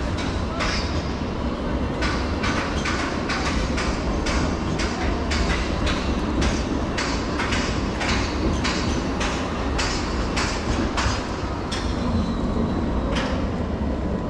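Footsteps at a steady walking pace, about two a second, on hard pavement that has just been rained on, over a steady low city street rumble.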